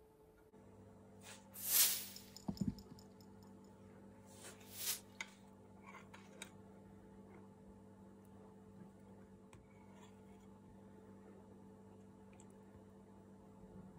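A steady low hum. A swish and a low thud come about two seconds in, then a few faint clicks of a metal ladle scooping and pouring pan juices in a ceramic baking dish.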